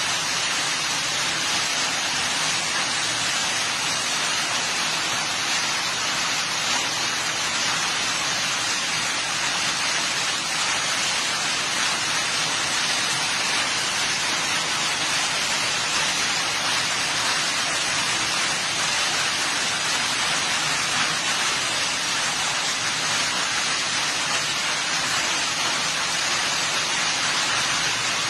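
Rain falling steadily on grass and leaves, an even hiss without breaks.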